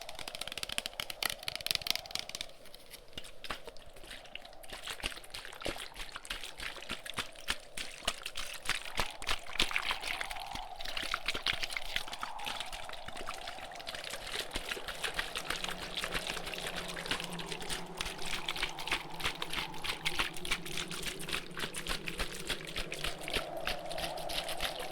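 Fast, dense close-microphone tapping, a crackly trickle of clicks, over a background wind sound that rises and falls in gusts.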